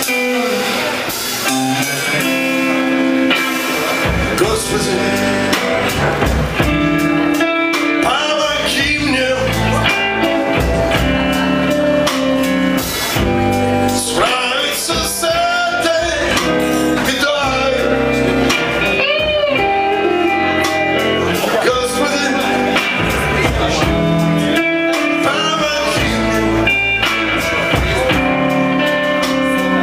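A rock band playing live: electric guitars, with a man singing into a microphone.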